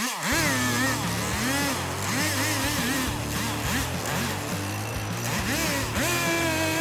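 Chainsaw engine revving up and down over and over, its pitch rising and falling about twice a second.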